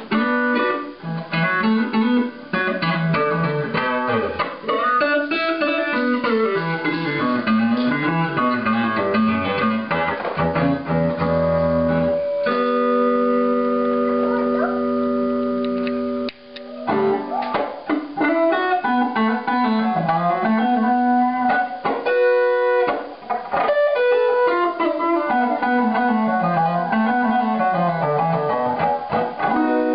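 Electric guitar played through a hand-built fixed-wah effect circuit and splitter/mixer: a picked single-note riff, with a chord left ringing for about four seconds near the middle.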